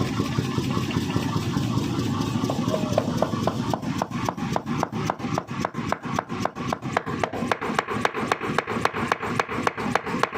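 New 7.5 kg power forging hammer test-running: the motor drive runs steadily, then the hammer starts striking about a few seconds in, settling into an even run of blows at about four to five a second.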